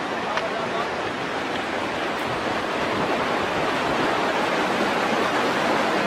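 Fast-flowing mountain stream tumbling over rocks, a steady rush of white water that grows gradually louder.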